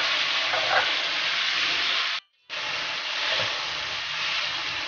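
Roughly chopped tomatoes sizzling as they fry in butter and oil in a hot kadhai. The sizzle cuts out for a moment a little past halfway, then carries on.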